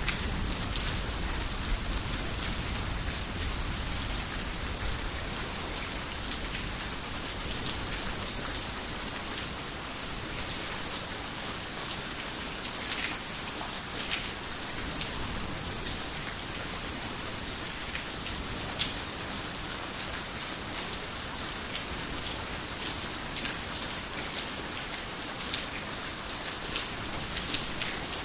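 Heavy rain falling steadily, with many individual drops ticking through the hiss. A low thunder rumble dies away in the first few seconds.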